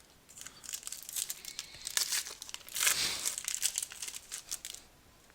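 Foil wrapper of a trading-card pack crinkling as it is torn open by hand, a dense run of crackles loudest in the middle.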